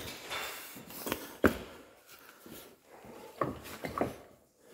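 Scuffing and scraping of a person clambering over rock in a tight mine passage, with a few sharp knocks about a second in and a cluster of knocks near the end.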